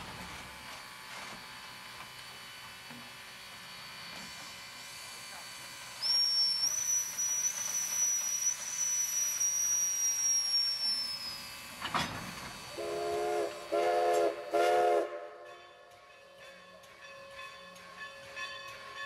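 Everett Railroad No. 11, a 1920 Alco 2-6-0 steam locomotive, venting steam with a high, steady hiss for several seconds that sags in pitch as it stops. A click follows, then three short blasts on its chime steam whistle.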